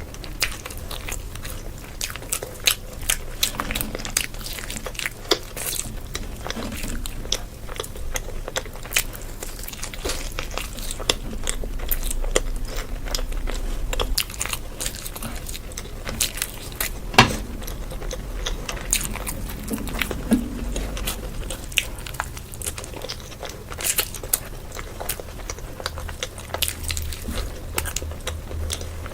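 A person biting and chewing food close to the microphone, with many short, irregular crunches and mouth clicks and one sharper crunch about two-thirds through.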